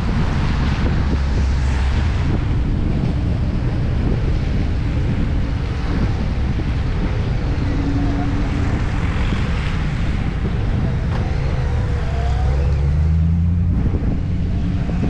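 Dodge Challenger R/T's 5.7 HEMI V8 running at low speed on a wet road, with wind on the microphone and tyre hiss; the engine note rises briefly about twelve seconds in.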